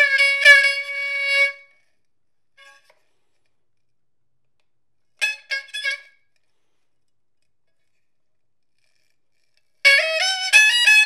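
A jinghu (Peking opera fiddle) plays solo accompaniment in a high, bright tone. A bowed phrase stops about a second and a half in, a few short detached notes come about halfway, and the playing picks up again near the end after silence.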